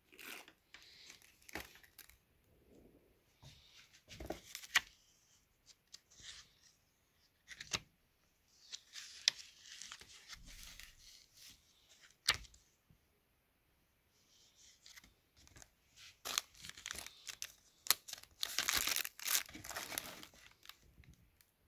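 Paper and clear plastic packaging being handled, crinkling and rustling in irregular bursts with scattered clicks and knocks. The longest stretches of rustling come about nine seconds in and again near the end.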